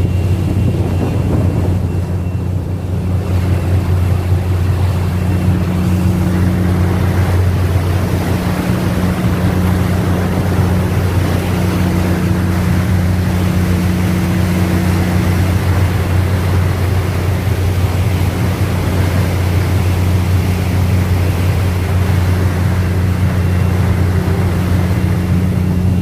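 A ship's engine drones as a steady deep hum, with wind rushing on the microphone and the churning wake behind the ship.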